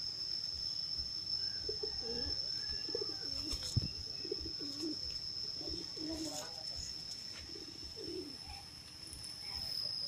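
Domestic pigeons cooing, a run of low coos that starts about a second and a half in and stops near the end. A steady high-pitched whine runs underneath, and there is a single knock a little before the midpoint.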